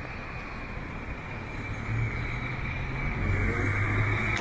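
A minivan driving past close by: its engine hum and tyre noise come in about one and a half seconds in and grow louder toward the end, over steady street background noise.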